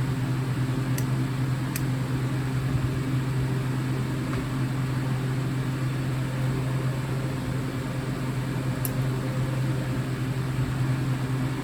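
Steady low mechanical hum over a faint hiss, with a couple of faint clicks about a second in.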